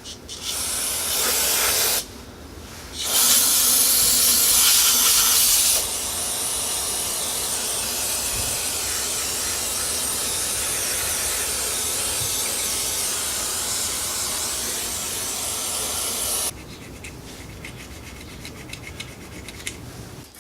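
Aerosol carburetor cleaner hissing out of the can in bursts as it is sprayed over engine clutch parts to wash off the old friction material. There is a short hiss, a louder one of about three seconds, then a long, steadier hiss of about ten seconds, and it ends with quieter handling clicks.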